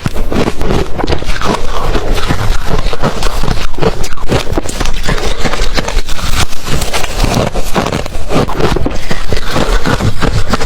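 Ice being crunched and chewed in the mouth close to the microphone: loud, rapid, irregular crunches and crackles, several a second, without pause.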